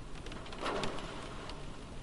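Light rain falling on a car, heard from inside the cabin: a steady patter with separate drops ticking on the roof and glass, and one louder splat just under a second in.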